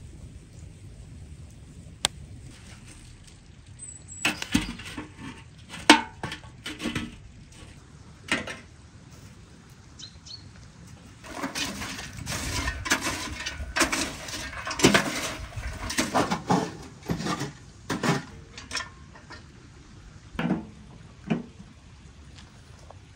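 Irregular knocks, clicks and clatter of things being handled: a few sharp knocks early on, then a busy run of knocks and rustling through the middle, with a couple of single knocks near the end.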